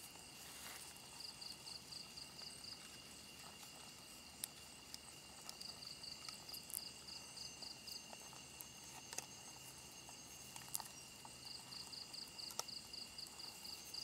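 Faint night insect chorus: a steady high trill, broken three times by a few seconds of rapid, even pulsed chirping, with scattered sharp clicks.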